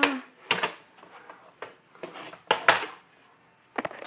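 Handling noise: a few short knocks and rubs, the louder ones about half a second in and around two and a half seconds in, and a quick pair of clicks near the end.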